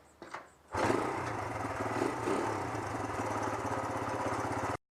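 A small engine running steadily with a rapid even pulse, starting abruptly about a second in and cutting off sharply just before the end.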